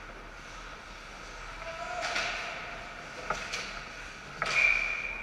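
Ice hockey sticks and puck clacking in a scramble in front of the net, a few sharp knocks. About four and a half seconds in, a referee's whistle blows, a steady high note held over a second: play is stopped.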